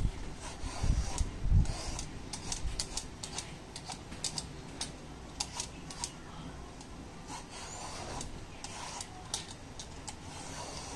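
Metal hand peeler scraping the skin off a bottle gourd in a series of short, quick strokes, with a few low thumps in the first two seconds.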